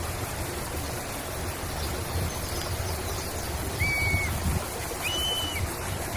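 Steady rush of running water, like a stream, with a low rumble under it. In the second half a bird whistles two short held notes about a second apart, the second pitched higher than the first.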